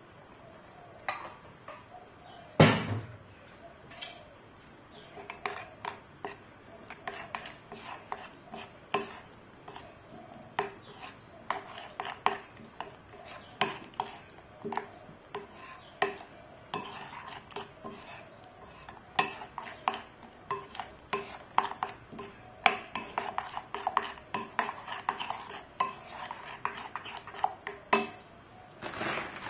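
Metal spoon stirring a flour-and-water batter in a ceramic bowl, clinking against the bowl again and again. A single loud knock comes about three seconds in.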